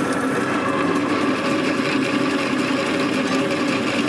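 Drill press running at a steady pitch as a twist bit cuts through stacked steel plates.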